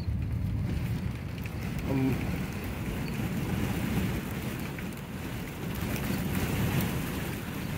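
Strong wind buffeting the microphone near a tornado: a steady low rumble.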